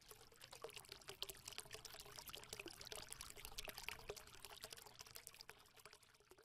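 Faint crackling, trickling noise made of many small rapid clicks, a sound effect under a logo animation.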